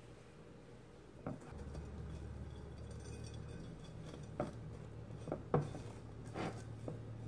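A few light knocks and taps against a china plate as a breaded pork chop is pressed and handled on it. A low steady hum comes in about a second and a half in and keeps going.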